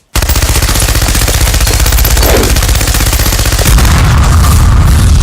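A loud, fast rattle of evenly repeating pulses, many a second, heavy in the low end, that cuts off abruptly.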